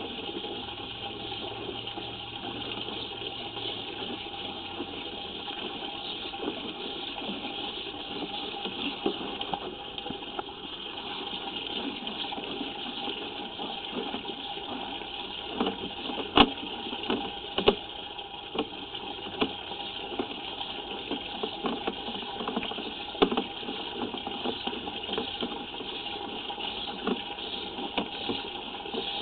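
Water running steadily through a sewer line, with scattered clicks and knocks from the inspection camera's push cable being fed down the pipe. The knocks come mostly in the second half.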